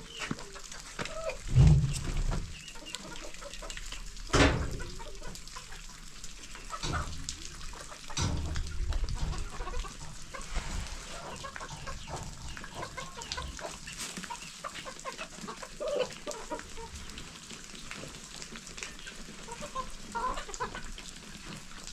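Chickens clucking, with short scattered calls throughout. Two dull thumps, the loudest sounds, come about two and four and a half seconds in.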